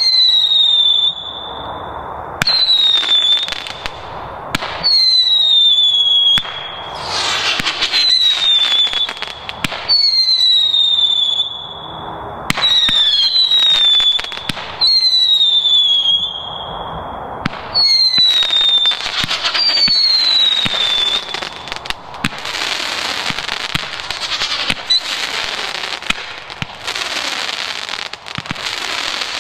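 Cube Fireworks Ballistic Attack candle firing shot after shot, one about every two seconds. Each shot is a sharp bang followed by a high whistle that falls in pitch. In the last third, the crackling mines fill in with a dense, continuous crackle.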